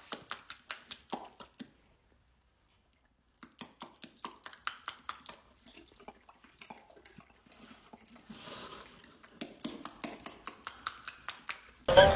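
Horse smacking and clacking its mouth and lips: a run of quick, sharp clicks at about four a second, with a pause of about two seconds near the start. Music comes in right at the end.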